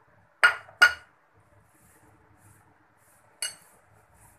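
Steel spoon clinking against dishes: two sharp clinks close together in the first second, then one more about three and a half seconds in.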